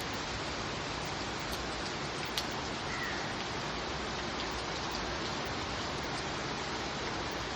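Steady rain falling, an even hiss with occasional sharper drop ticks, one standing out about two and a half seconds in.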